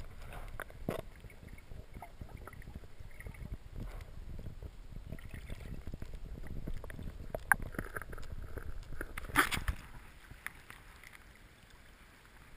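Muffled churning and sloshing of river water around a submerged action-camera housing, with a dense low rumble, small crackles and a few sharper knocks, the loudest about nine and a half seconds in.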